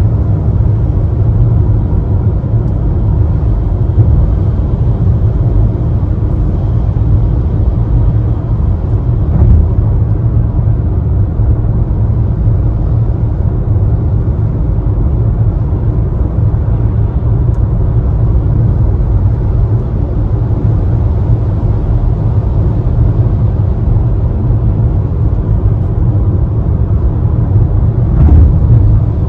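Steady low road rumble heard inside a car driving at motorway speed on a rain-soaked road, tyres running on wet tarmac. Near the end there is a brief louder whoosh as a lorry passes alongside.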